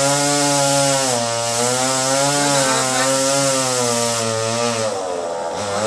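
Two-stroke chainsaw running at high speed, cutting into melinjo wood; its engine note wavers up and down with the load. About five seconds in the engine drops to a lower speed.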